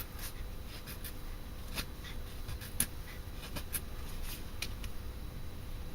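Knife blade carving hard, seasoned ash wood: a series of short, irregular scraping strokes as shavings are taken off.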